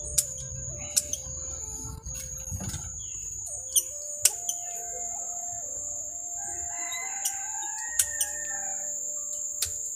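Sharp snips of pruning shears cutting small bonsai twigs, about ten clicks at irregular intervals, over background music with a steady high whine.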